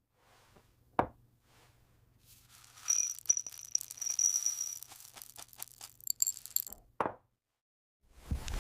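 Glass sounds: a sharp tap about a second in, then several seconds of crackling, scraping hiss with a high ringing tone and many small clinks, and another sharp tap at about 7 s.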